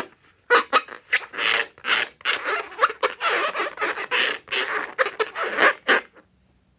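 Glossy slime being squished and worked, a rapid run of sticky, wet squelches and crackles that stops about six seconds in.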